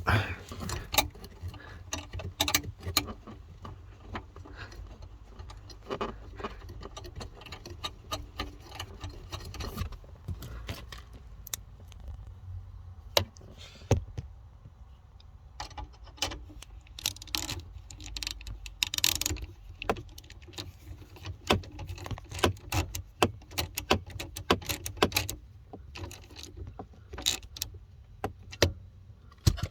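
Irregular clicks, taps and light metallic rattles of hand tools, a 10mm bolt and trim parts being handled during reassembly of a car's dashboard.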